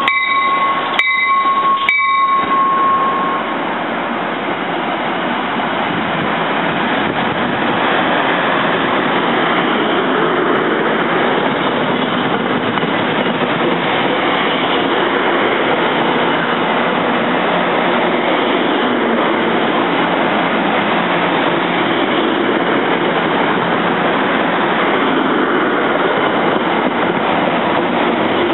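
New Jersey Transit commuter train rolling past: a steady noise of wheels running over the rails as the coaches go by. A high steady tone sounds over the first few seconds and stops about three seconds in.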